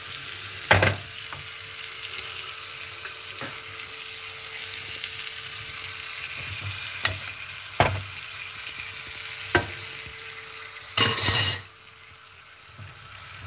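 Pineapple pieces frying in butter and powdered sugar in a pan, a steady sizzle. A few sharp knocks sound through it, and a loud rush of noise near the end, after which the sizzle drops away.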